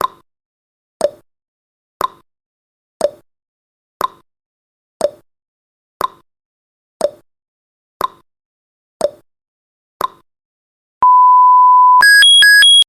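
Countdown timer sound effect: a clock-like tick-tock once a second, alternating higher and lower, then a steady beep about a second long as the count reaches zero, followed by a rapid two-tone electronic alarm beeping.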